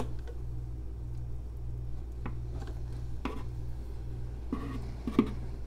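Manual caulking gun laying a bead of white silicone caulk: about five short clicks from the trigger and plunger rod over a steady low hum.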